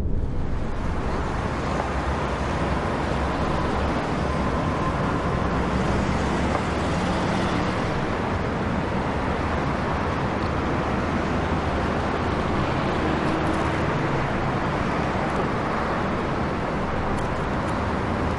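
Road traffic: cars driving past at a roundabout, a steady wash of engine and tyre noise.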